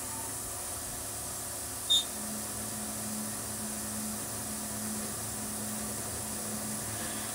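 Tormach CNC mill's spindle turning a quarter-inch three-flute flat end mill at 6,500 RPM through a finishing pass on a counterbore, with coolant spraying as a steady hiss. A brief high-pitched chirp about two seconds in is the loudest moment.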